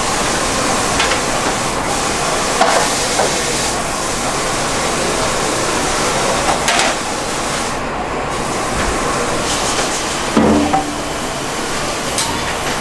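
Steady kitchen background hiss, with a few light knocks and clatters of utensils and dishes. A heavier knock comes near the end.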